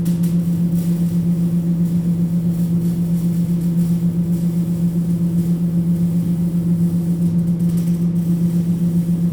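Electric arc welding: a steady low buzz with a faint crackle over it, its loudness rippling rapidly.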